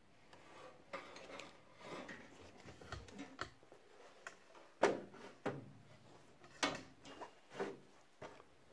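A metal-cased DVD player being handled and set down on a tile saw's sliding table: a series of light knocks and scrapes of the casing, the sharpest about five seconds in.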